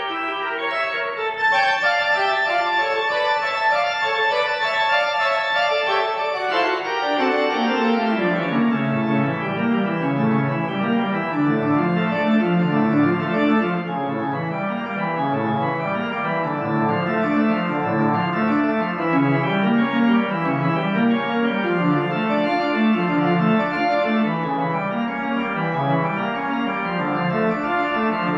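Organ music with full sustained chords and no voices. A few seconds in, the bass line walks downward, then keeps rising and falling in a steady rolling figure under the held chords.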